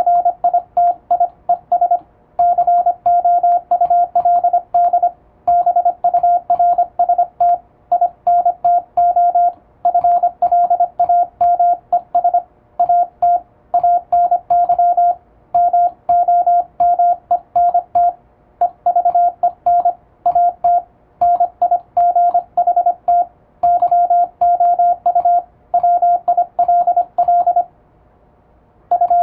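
Latin-alphabet Morse code sent at high speed with an electronic keyer: a steady high-pitched sidetone beep keyed rapidly into dots and dashes. Short pauses fall between words, and a longer gap comes near the end.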